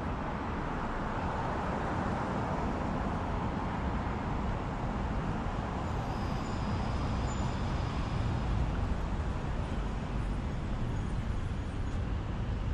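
Steady traffic noise from cars driving along a multi-lane city avenue, a continuous rush of engines and tyres on asphalt.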